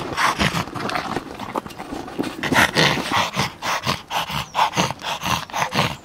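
Yorkshire terrier panting hard in quick, breathy bursts, about three a second, as it paws and mouths a plastic ball in excitement.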